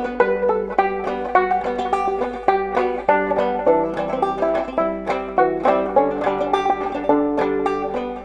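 Nylon-strung Deering openback five-string banjo played in four-finger style, a quick, even stream of plucked notes picking out a ragtime-style tune.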